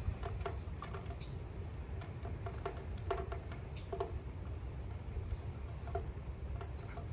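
Rain pattering and dripping, heard as many small irregular ticks and taps over a low steady rumble.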